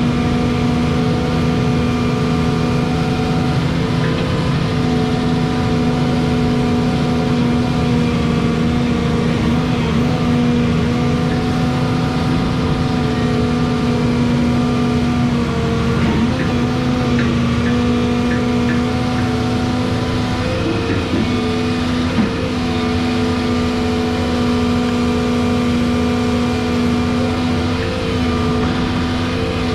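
Volvo 235EL excavator's diesel engine running at steady revs while the arm works a levelling beam, its pitch dipping slightly a couple of times under load. A short knock comes about three-quarters of the way in.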